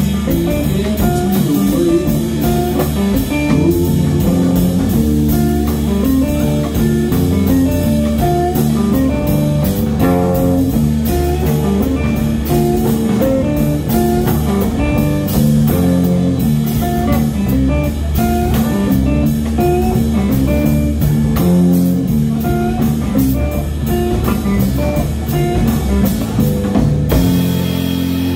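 Live blues-rock band playing: electric guitars over a drum kit, with a steady beat and moving guitar lines. Near the end the drumming stops and a chord rings on.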